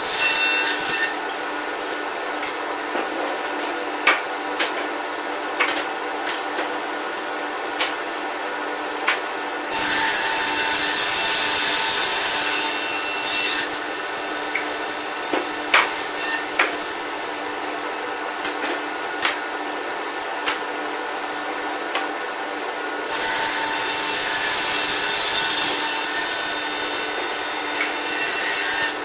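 Scragger-RS2 scragg mill's twin saw spindles running with a steady hum and cutting through aspen logs twice in long hissing passes, with sharp knocks of logs and sawn slabs being handled between the cuts.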